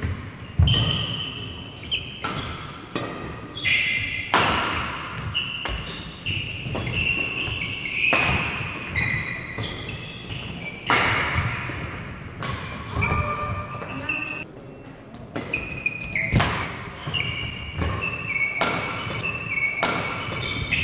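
Badminton rally: rackets cracking against the shuttlecock at an irregular pace, with a few much louder smashes among the lighter shots, echoing in a large hall. Short high squeaks of shoes on the court mat come between the hits.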